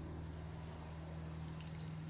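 A steady low hum, with a faint hiss and a few faint high ticks in the second half.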